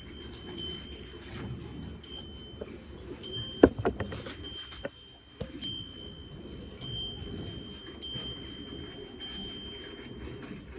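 A small bell ringing over and over, a short high ring about once a second, with a few sharp knocks about four seconds in.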